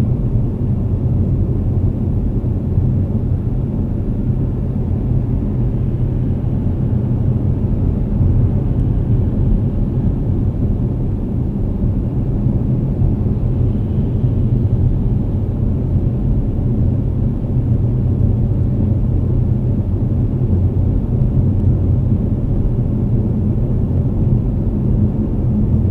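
Steady low rumble of a car driving on a highway, heard from inside the cabin: road, tyre and engine noise with no breaks.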